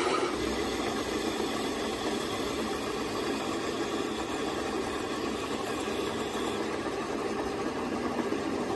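Metal lathe running while a large twist drill bores into the end of a steel gearbox main shaft, a steady mechanical noise of the spinning work and the cutting drill. A few sharp ticks come about four and five seconds in.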